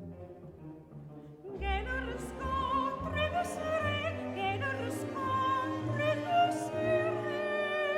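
Operatic music: a singer with strong vibrato over an orchestra, coming in loudly about one and a half seconds in after a quieter orchestral passage.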